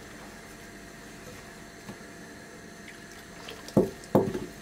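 A hand mixing flour and water into a soft, wet dough in a glass bowl, faint and quiet. Near the end come two short, loud knocks about half a second apart.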